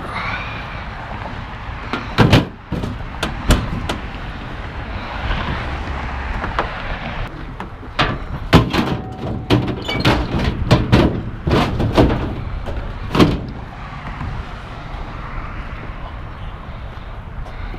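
Clunks and bangs of heavy equipment being handled and loaded into a truck: a dozen or so sharp knocks, a few at first and then a dense cluster in the middle, over a steady background rumble.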